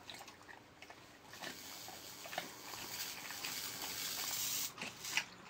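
A dog eating food from a hand, with soft irregular chewing clicks.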